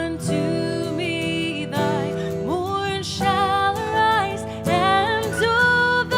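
A hymn sung with vibrato and long held notes over a sustained instrumental accompaniment.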